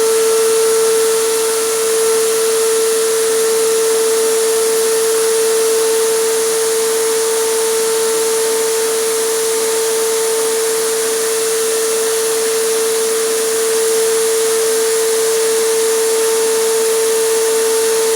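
Air compressor running with the steady hiss of a spray gun applying acrylic resin, holding one continuous hum under the hiss.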